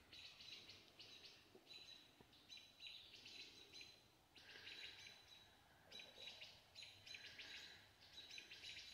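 Faint bird chirping: short high-pitched bursts that repeat in quick runs of several a second, pausing briefly between runs.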